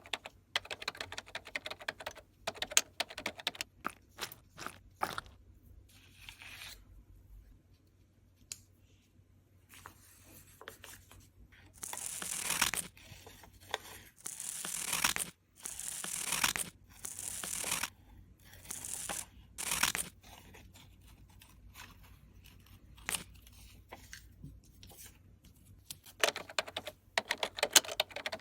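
Close-up foley of diary-decorating material handled and torn: a scatter of small taps and clicks, then about six long rips of roughly a second each, then a quick run of clicks again near the end.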